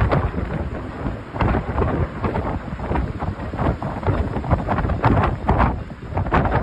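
Storm wind buffeting the microphone in uneven gusts, with rain.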